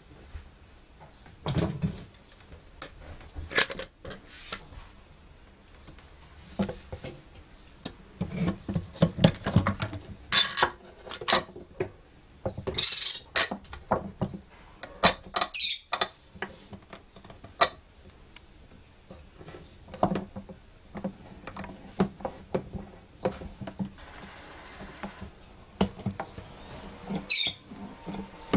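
Irregular clicks, taps and short scrapes of fret wire and a fret-press caul being handled and clamped on a Martin D-28's fingerboard during a refret. Near the end, a sharp click is followed by a ringing tone.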